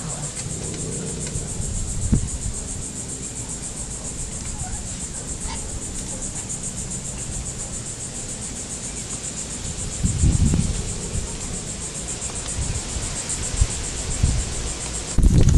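Insects chirring steadily in a high, fast-pulsing drone, with a few low rumbles on the microphone about ten seconds in and near the end.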